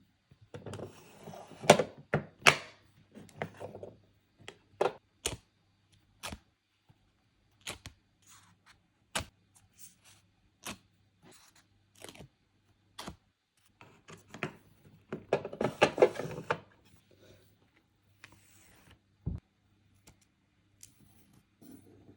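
Stickers and paper being handled for a sticker collage: scattered sharp taps and clicks, with stretches of crinkly rustling near the start and again about two-thirds of the way through.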